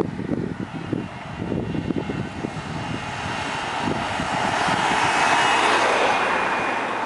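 A Suzuki SUV drives past close by; its tyre and engine noise swells to a peak about five seconds in and then eases. Wind buffets the microphone throughout.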